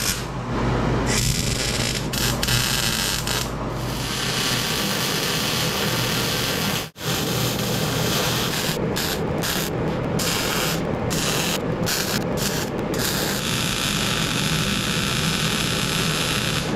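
Wire-feed welder arc crackling on steel during welding. The arc stops sharply once about seven seconds in and several more times between about nine and thirteen seconds, then runs steadily to the end.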